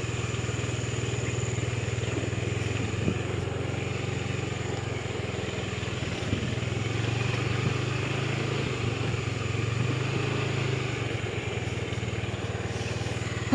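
Small motorcycle engine running steadily at a low, nearly even pitch while the bike moves along a rough dirt track, with a few light knocks along the way.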